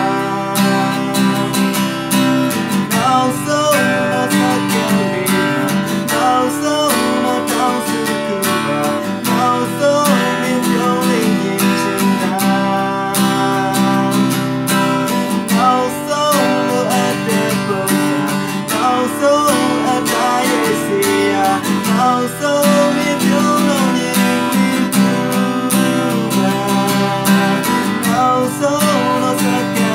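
Yamaha acoustic guitar strummed steadily in a chord pattern, with a man singing along.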